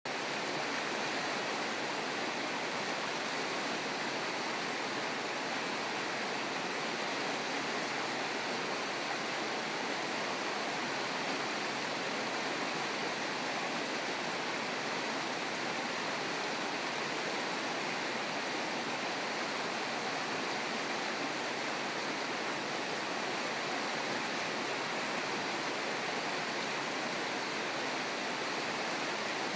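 Shallow river running fast over rocks and small riffles: a steady, even rush of water that does not change.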